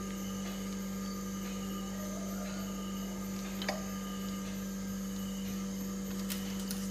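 A steady low hum with faint higher tones above it, and a single brief click about three and a half seconds in.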